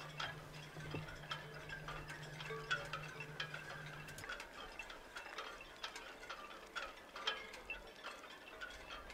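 Soft background music of scattered, irregular chime notes like wind chimes, over a low steady tone that stops about four seconds in.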